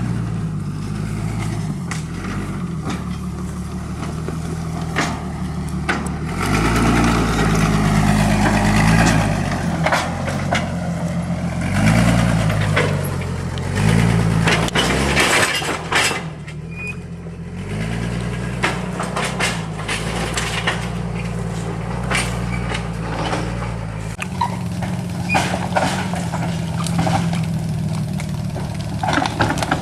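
Bombardier SW48 tractor's engine running, revving up and down several times as it works, with sharp cracks and knocks throughout.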